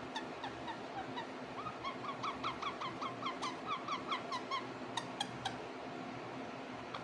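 Indian ringneck parrot calling in a quick run of short, repeated chirps, about four a second, loudest in the middle. A few sharp clicks follow near the end.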